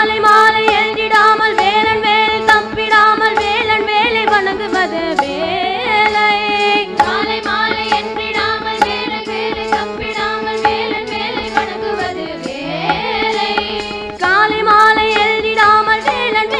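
Devotional bhajan sung by a chorus of girls over a steady drone, with tambourine and hand clappers keeping a regular beat.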